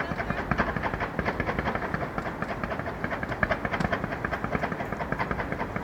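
Fireworks crackling: a dense, unbroken run of rapid small pops, several a second, without a break.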